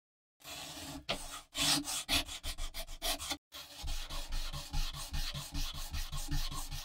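Hand-sanding bare knife steel with P400 sandpaper wrapped round a small rod, rubbed back and forth in scratchy strokes. After a short pause midway the strokes come quick and even, about four a second.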